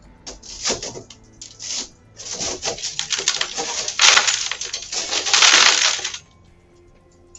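Loud, irregular crunching and rattling noises in bursts, growing denser and loudest about four seconds in, then stopping suddenly about six seconds in.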